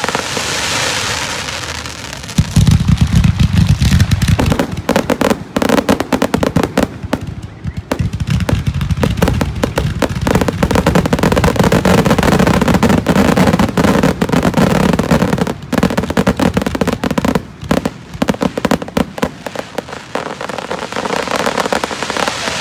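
Fireworks going off in a dense barrage of bangs and crackling bursts packed close together, growing heavier about two seconds in and carrying on with only brief lulls.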